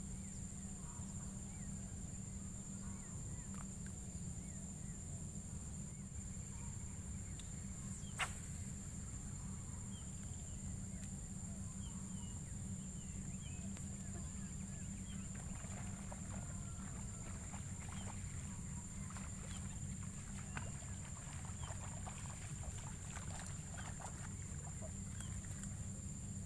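Open-air rural ambience over a flooded rice field: a steady low rumble, a constant high insect whine and scattered faint chirps, with one sharp click about 8 seconds in. From about 16 seconds in, a busier run of short splashes and rustles as a hooked snakehead is fought and swung out of the water.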